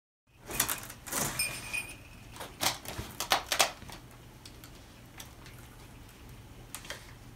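Small shrine bell (suzu) jingling and rattling as a cat paws and tugs its rope: a burst of shakes with a short ring in the first few seconds, then a few faint clinks.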